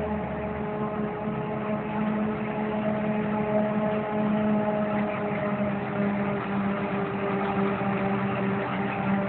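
Claas Jaguar 840 forage harvester chopping maize, with a John Deere tractor running alongside it: a steady, even engine hum over the rushing of the chopper.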